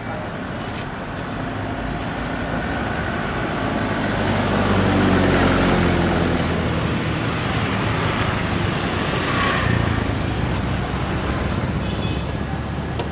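Street traffic: a motor vehicle passes close by, its engine and tyre noise swelling to loudest about five seconds in and then fading, with a smaller swell from another pass about ten seconds in.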